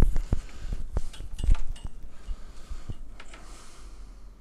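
A power cable being pulled out and handled on a desk: a few light knocks and rubs of cord and plug in the first two seconds, then only faint ticks.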